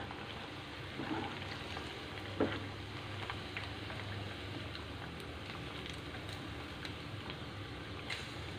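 Chicken pakodi deep-frying in hot oil in a kadai: a steady sizzle scattered with small pops, with a few sharper clicks as a metal spoon scoops fried pieces out of the oil.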